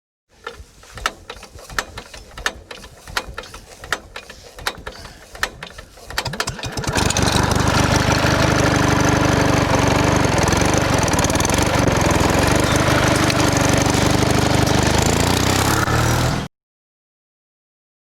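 Scattered sharp clicks and knocks, then about seven seconds in an engine starts and runs steadily for about ten seconds before cutting off abruptly.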